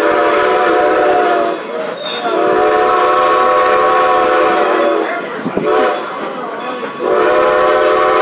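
Steam locomotive whistle blowing the grade-crossing signal: long, long, short, then a long blast starting near the end, over the rumble of the moving train.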